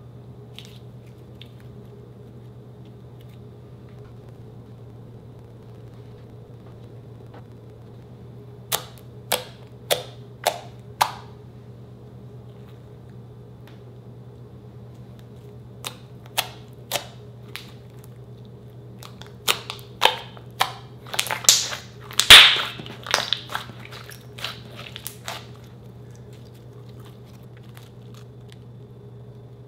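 Glossy slime being pressed and poked by hand, giving sharp clicking pops as trapped air bursts. Five evenly spaced pops come about a third of the way in, then a few more, then a quick cluster of louder snaps about two-thirds in, over a steady low hum.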